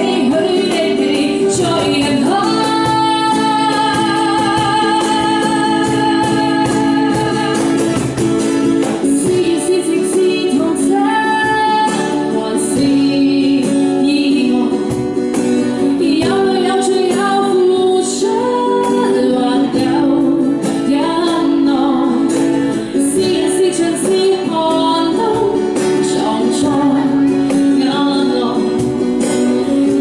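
A woman sings a Cantonese pop song live, with strummed acoustic guitar and cajón accompanying her. She holds one long note a few seconds in.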